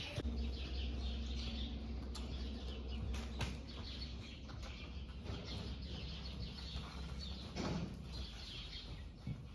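Small birds chirping continuously over a low steady hum that stops about eight seconds in, with a few soft knocks.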